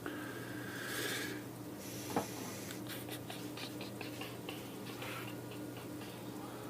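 Small scratching and clicking of hand tools on a circuit board during soldering work, with a brief hiss about a second in and a single knock a little after two seconds, over a steady electrical hum.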